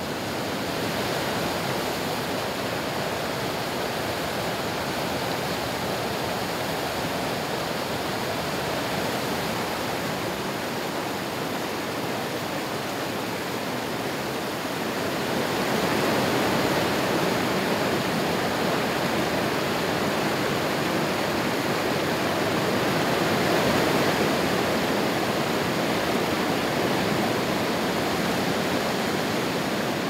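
Water rushing over small falls and rapids on rock ledges: a steady rush that grows louder about fifteen seconds in.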